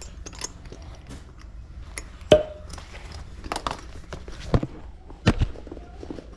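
Handling noise from a suede handbag being opened and an item pulled out of it: rustling with a few sharp knocks, the loudest a short ringing tap about two seconds in and two more knocks near the end.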